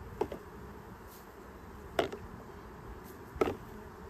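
Honey bees buzzing steadily around an open hive, broken by three sharp clicks or knocks from handled gear, the loudest about two seconds in and again over a second later.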